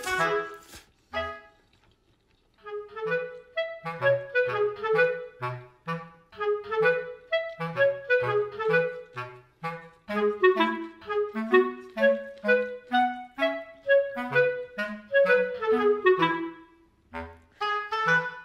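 Instrumental background music: a melody of short, even notes over a bass line. It breaks off briefly about a second in and again near the end.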